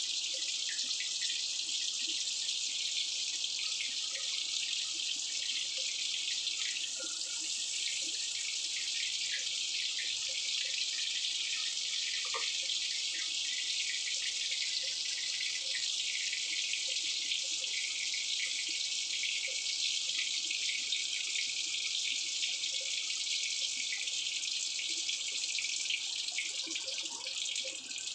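Butter sizzling and foaming as it melts in a hot wok, a steady hiss that eases off a little near the end.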